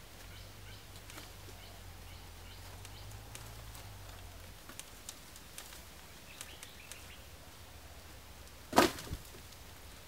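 A loud thump with a smaller knock just after, about nine seconds in, as a bundle of cut bamboo lands on the wooden platform. Before it there are faint bird chirps and light ticks and creaks of the climb.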